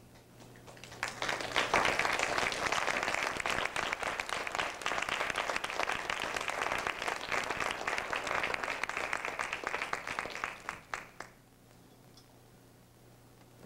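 Audience applauding: the clapping swells in about a second in, stays dense and steady, then thins out to a few last claps and stops about eleven seconds in.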